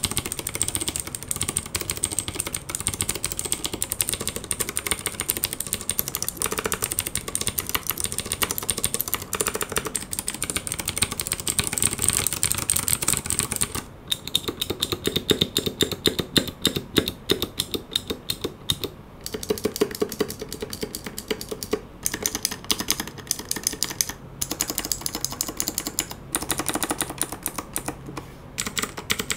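Royal Kludge RK61 hot-swap mechanical keyboard with RK brown switches being typed on in a sound test. For about fourteen seconds the typing is fast and steady, with a dense run of clicks. After that come slower, separate key presses, including the space bar.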